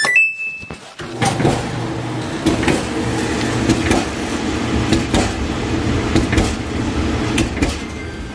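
A dryer's control beeps once, then about a second in the Kenmore dryer's drum starts turning and runs with a steady rumble and repeated knocks. The thumping comes from a crack in the back of the drum.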